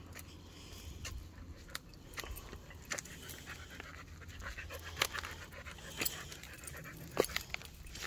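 A dog panting, with scattered sharp clicks, the loudest about five and seven seconds in.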